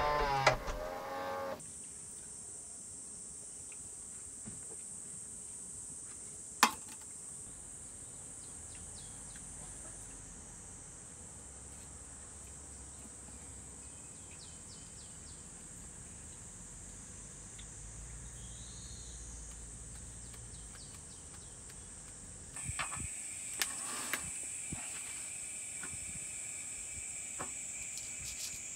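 Night insects, crickets, chirring steadily in a high, even drone. A second, lower insect drone comes in about two-thirds of the way through. There is one sharp click about six and a half seconds in and a few soft knocks near the end.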